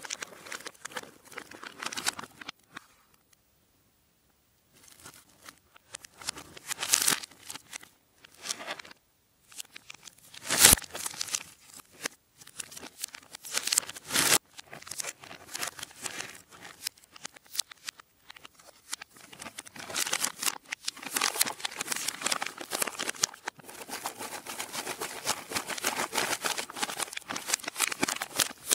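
Foil-lined plastic Nutella Biscuits pouch crinkling and rustling as it is handled and its open top is worked. The crinkling is irregular, with a short silent pause a few seconds in and two sharp snaps around the middle. It becomes dense and continuous in the last third.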